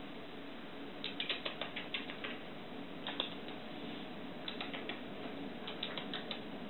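A mini-labradoodle puppy licking a person's face: short bursts of quick, wet smacking clicks, starting about a second in and coming again around three seconds and twice more in the second half.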